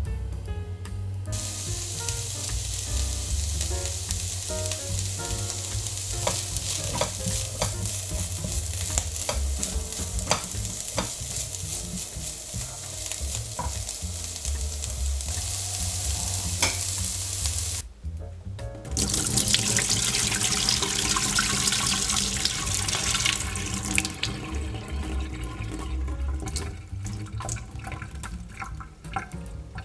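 Vegetables sizzling in a hot frying pan, stirred with a spatula that gives scattered scraping clicks. The sizzle starts about a second in, breaks off briefly just after halfway, comes back louder, and dies down over the last few seconds.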